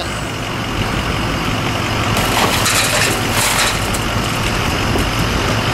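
Wheel loader's diesel engine running steadily. About two seconds in comes a stretch of crunching and scraping lasting a second or so, as its fork pushes in through the car's broken window glass.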